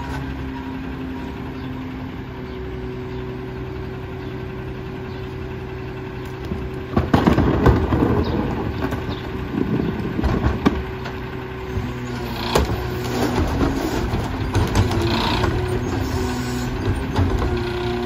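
Rear-loading garbage truck's diesel engine idling steadily, then from about seven seconds in a louder stretch of mechanical clatter and rougher engine noise as the hydraulics work. Later the engine pitch steps up and down while a wheeled plastic recycling cart is rolled to the hopper and raised by the cart tipper near the end.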